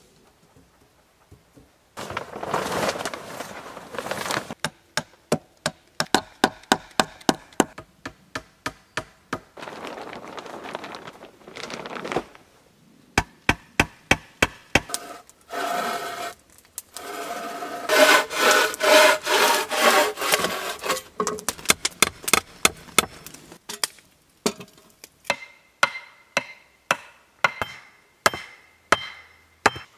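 Hand work on wood: bouts of rough scraping and rasping alternate with sharp knocks. Near the end a hatchet chops a stick on a wooden block in steady strikes, a little under two a second.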